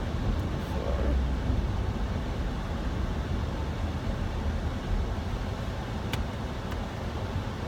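Steady road noise inside a moving car's cabin: a low rumble of tyres and engine with an even hiss above it.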